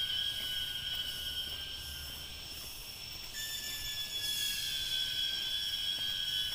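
Forest insects droning in a steady, high-pitched whine of several held tones, which shift slightly in pitch about halfway through.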